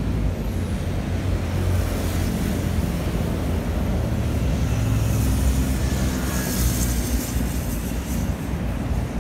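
Road traffic with a nearby engine running at a steady low hum; a brief high hiss comes in about six and a half seconds in.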